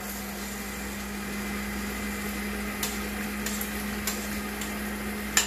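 Stand mixer running, its motor humming steadily as the beater whips cooked cauliflower into a mash in the metal bowl, with a few light clicks in the second half.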